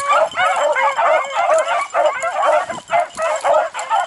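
A pack of beagles in full cry, many overlapping high yelps and bays with no pause: the hounds are giving tongue on a scent trail.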